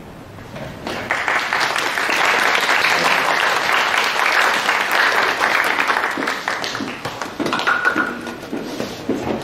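Small audience applauding, the clapping starting about a second in and thinning out over the last couple of seconds.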